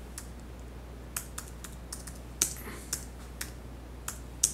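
Typing: about ten separate key clicks at an uneven pace as a short note is keyed in, over a low steady hum.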